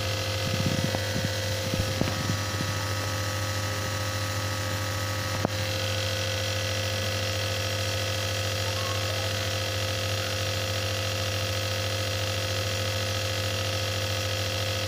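Electric nebulizer compressor running with a steady hum, feeding medicated mist to a child's face mask. A single sharp click about five and a half seconds in.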